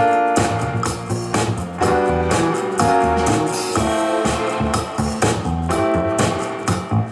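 A music track with a steady beat, played at maximum volume through a small portable Bluetooth speaker.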